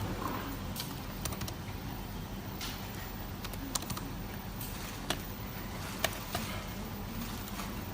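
Sparse, irregular light clicks and taps of small hard parts being handled, over a steady low electrical hum.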